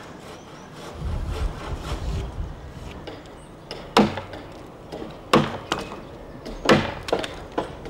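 Axe chopping into a green-timber cruck blade as it is hand-hewn: three sharp strikes a little over a second apart, with lighter knocks near the end.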